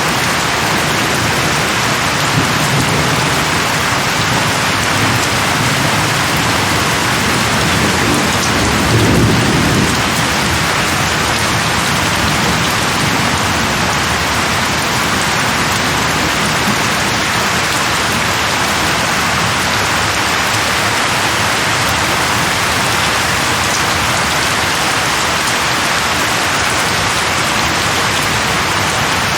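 Steady heavy rain hissing without pause. A low rumble of thunder swells and fades about a third of the way in, with a fainter rumble before it.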